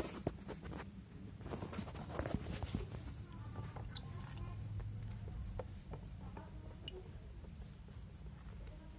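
A hand moving in shallow water in a plastic tub and lifting out a small turtle: light splashes and drips with scattered small clicks, over a low steady hum.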